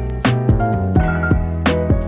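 Background music: a keyboard-led instrumental with a steady beat and held notes.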